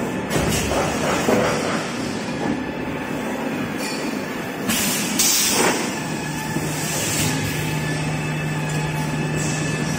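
Toilet paper and kitchen towel production line running: a steady mechanical rumble and clatter of rollers and drives. There is a short burst of hiss about halfway through, and a steady low hum joins just after.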